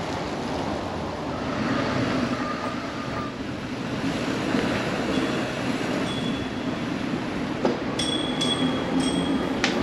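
A bicycle towing a trailer rolling along a paved path: a steady rumble of tyres and rushing wind, with faint squeaky tones and a couple of sharp clicks near the end.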